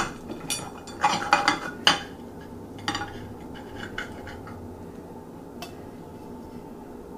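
Chef's knife cutting through a fried ramen noodle grilled cheese sandwich, the blade clacking and scraping against a ceramic plate. A tight run of sharp clicks comes in the first two seconds, then a few sparser ones.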